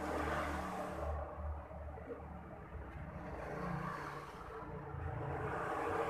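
A motor vehicle engine running, its level swelling and easing over a few seconds.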